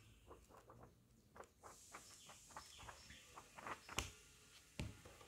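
Paper pages of a thick paperback handbook being flipped through in quick succession: a run of soft, irregular paper flicks, with a sharper tap about four seconds in.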